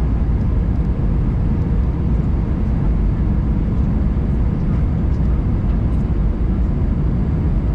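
Steady cabin noise of an Airbus A319-112 in flight: a constant low rumble of its CFM56 jet engines and the airflow over the fuselage.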